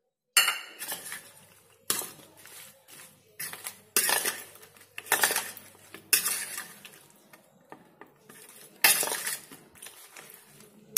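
A metal spoon clinking and scraping against a stainless steel bowl as coated brinjal slices are stirred into beaten egg. There are sharp clinks every second or two, with scraping in between.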